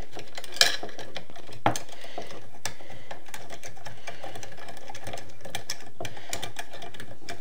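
Small clicks and taps from hands handling the plastic and metal parts of a laser engraver's carriage, with two sharper clicks in the first two seconds.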